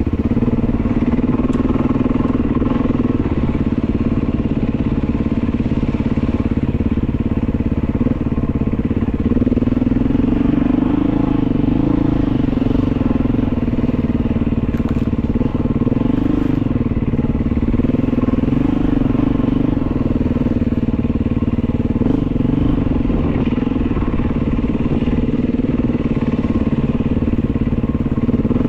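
Beta 500 dirt bike's single-cylinder four-stroke engine running under way, its pitch rising and falling gently with the throttle.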